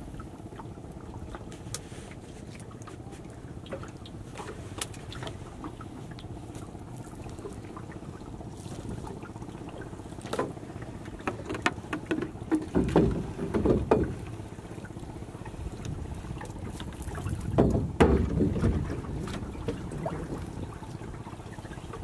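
Fishing net being hauled by hand into a wooden boat: scattered knocks and rustles of the net and line against the wooden hull, with two louder stretches about halfway through and again near the end, over steady wind and river noise.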